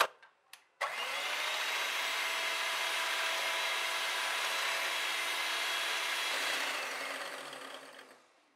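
Electric hand mixer running at a steady speed with a steady whine, its twin wire beaters whipping cream. It switches on about a second in and fades away over the last two seconds.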